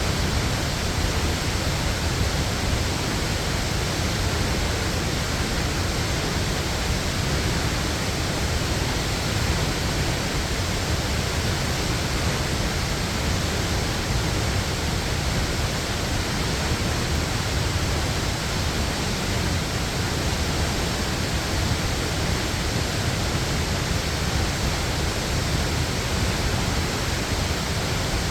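A waterfall's steady, even rush of falling water, with a deep rumble under it.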